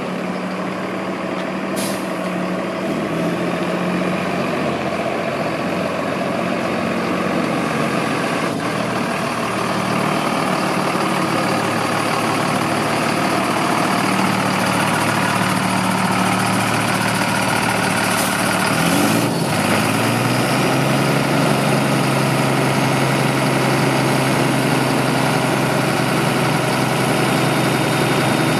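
Diesel engine of a 2003 Freightliner M2-106 single-axle box truck running steadily at low speed, heard from outside the truck. About two-thirds of the way through the engine note rises briefly and then settles into a steady idle, with a few short sharp sounds along the way.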